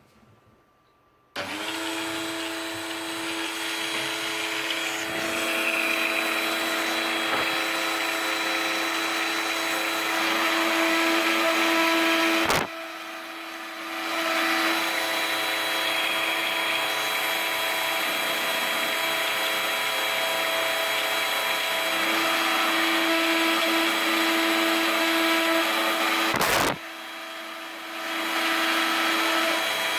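Proxxon hobby drill running as the CNC spindle, its 30-degree V-bit milling a copper-clad PCB: a steady whine that starts suddenly about a second and a half in. It drops quieter twice, each time after a sharp click, then comes back up.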